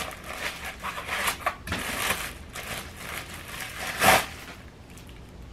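Plastic packaging rustling and crinkling as it is pulled off a newly unboxed desk lamp by hand, with a louder crackle about four seconds in.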